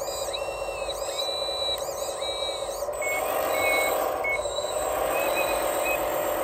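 Steady whine of a radio-controlled Cat 980L wheel loader model's electric motors, getting louder about three seconds in as the loader steers and works its bucket.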